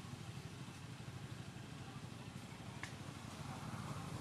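Steady low rumble of outdoor background noise, with one short faint click about three seconds in.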